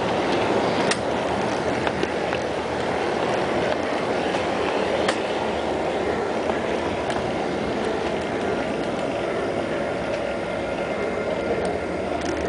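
G scale model train running along the track: a steady rolling rumble of wheels and motor, with a few sharp clicks.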